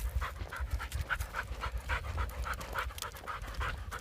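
A dog panting fast and hard, about four breaths a second, out of breath from the walk.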